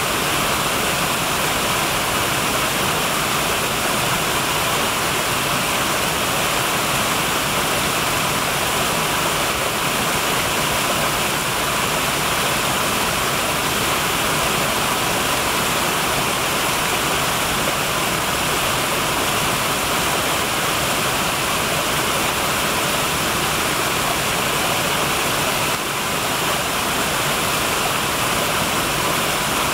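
Small woodland waterfall cascades pouring over mossy rocks into a pool: a steady, unbroken rush of falling and splashing water.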